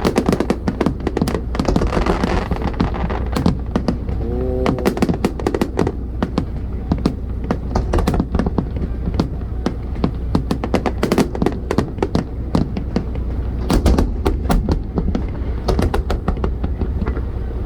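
Fireworks shells bursting in quick, dense succession with many sharp cracks and crackles, over a steady low rumble.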